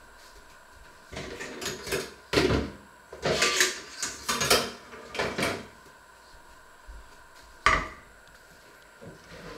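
Metal kitchenware clattering in a quick run of knocks as it is handled, then one sharp knock as a stainless steel colander is set down on a wooden chopping board.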